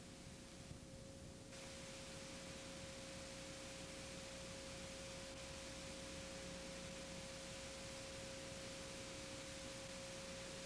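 A faint, steady single tone with hiss from an old videotape transfer; the hiss gets slightly louder about a second and a half in.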